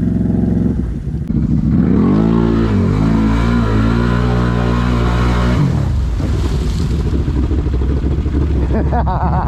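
Can-Am Renegade XMR 1000R's Rotax V-twin running through an SLG Sniper slip-on exhaust, revving up and holding high revs while the ATV pushes through water, with water spraying. About halfway through the revs drop and it runs lower and rougher.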